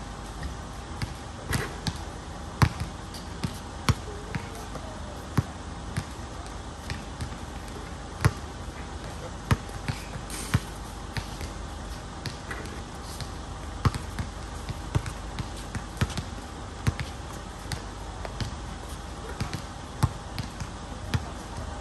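Basketball bouncing on a hard outdoor court: sharp, irregularly spaced thuds, one or two a second, as the ball is dribbled and shot.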